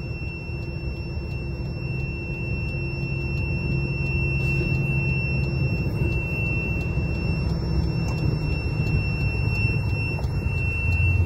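Diesel engine of an Isuzu FXZ360 ten-wheel truck running steadily at about 1,500 rpm, heard from inside the cab while the truck is driven slowly. The engine is overheating with its coolant boiling, and a steady high-pitched tone runs over the engine sound.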